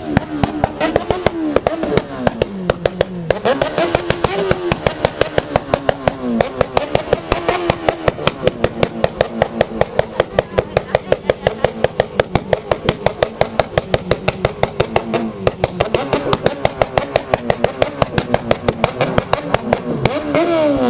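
Motorcycle engine running with a steady, rapid pulsing beat, several pulses a second.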